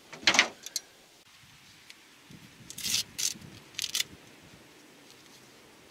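Handling noise from a coiled plastic kill-cord lanyard and its clip being picked up and fastened, heard as short rubbing and scraping bursts. One comes just after the start and a cluster of three or four comes about three to four seconds in.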